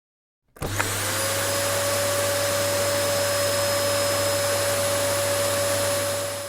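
An electric motor appliance switched on with a click: its motor whines up to a steady pitch within a fraction of a second and runs loud and steady with a rush of air, then cuts off abruptly at the end.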